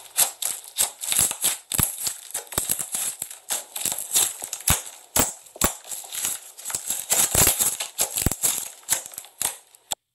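Thick slime being pressed and stretched by hand, crackling with a dense, irregular run of sharp clicks and pops, several a second, that stops suddenly just before the end.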